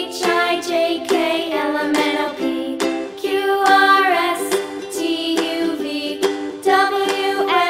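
Background music: a melodic tune with new notes several times a second.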